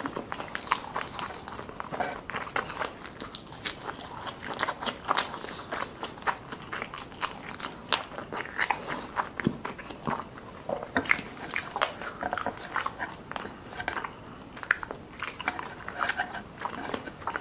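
A person chewing crunchy food: an irregular, close run of crunches and crackles.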